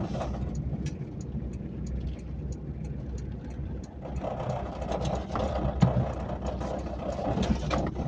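Car engine and tyre noise heard from inside the cabin while driving slowly. About four seconds in, the car rolls off the paved road onto dirt and gravel, and a rougher crunching with scattered small clicks comes in over the low engine rumble.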